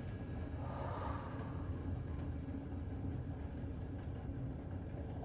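Steady, low rumbling ambient soundscape from a meditation app playing without a break.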